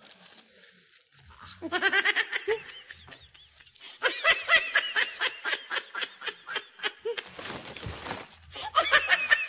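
A man laughing hard in three bouts of quick repeated pulses, the longest about three seconds, with a short rush of breathy noise just before the last bout.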